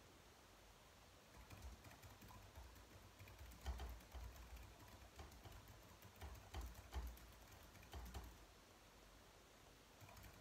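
Typing on a slim low-profile keyboard: a run of quiet keystroke clicks that starts about a second and a half in and stops a little after eight seconds, with a few heavier strokes among them, then a single faint click near the end.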